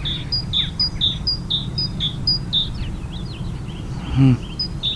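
Great tit singing its repeated two-note 'teacher-teacher' song, a high note followed by a lower one about twice a second. A little after halfway the phrase breaks off into a few scattered chirps, then starts up again near the end.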